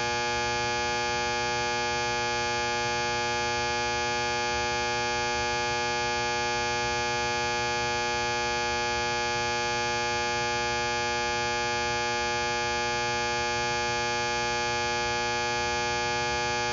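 Electrical box giving off a steady electrical hum, a buzzy tone with many overtones that holds unchanged throughout.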